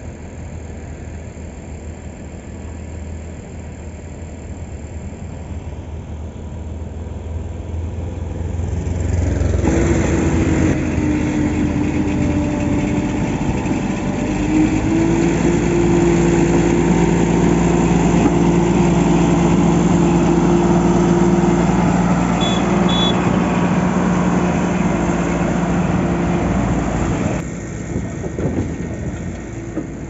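Diesel engine of a SANY motor grader running close by with a steady drone. It grows louder about a third of the way in as the machine works and drops back a few seconds before the end.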